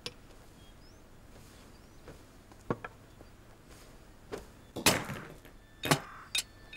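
A gold bangle dropping onto a stone floor: a sharp clink about five seconds in, then two smaller clinks as it settles, after a couple of faint knocks earlier on.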